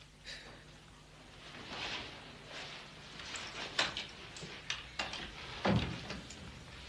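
An apartment front door being unlocked and opened by someone coming in: a few sharp clicks of key, lock and latch, with a heavier knock of the door near the end.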